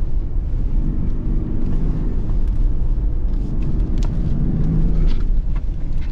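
Toyota Land Cruiser 300's 3.3-litre twin-turbo V6 diesel running while driving off road, over a heavy low rumble; the engine note swells and shifts in pitch a couple of times. Scattered sharp clicks and knocks come through, mostly in the second half.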